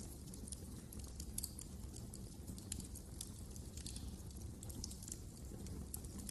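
Wood fire crackling: many small, irregular pops and snaps over a low, steady rumble.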